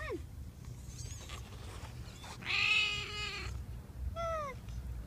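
A very young kitten mewing while being handled: a short falling mew at the start, a long, loud cry about two and a half seconds in, and another short mew falling in pitch about four seconds in.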